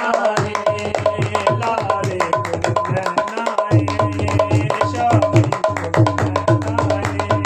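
Dholak hand drum played in a fast, even rhythm: deep bass strokes under sharp slaps, with the bass getting fuller about halfway through. Voices sing along over the drum.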